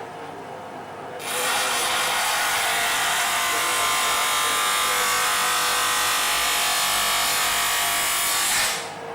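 Stanley STGB3715 bench grinder running, with a workpiece pressed against its spinning wheel about a second in: a loud, steady grinding hiss that lasts about seven seconds and stops shortly before the end, leaving the motor's hum.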